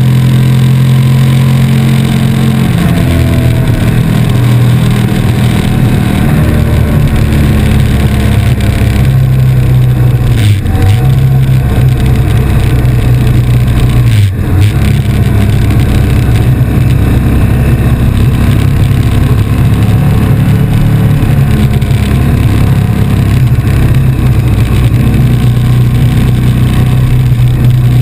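KTM RC8 V-twin engine running steadily at road speed, heard from the rider's seat with wind rushing past. The engine note dips briefly twice, about ten and fourteen seconds in.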